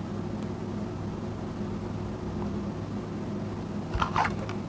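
Steady low mechanical hum with several faint tones. About four seconds in, a few short clicky sounds come as hands work rice on a plate.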